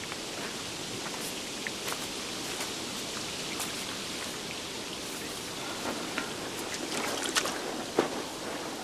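Steady rushing and trickling of water running along a small stone-lined stream channel, with a few light clicks and steps on rocky ground.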